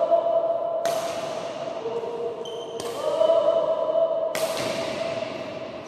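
Badminton racket striking a shuttlecock three times, each hit a sharp crack that rings on in the hall, over background music of held notes.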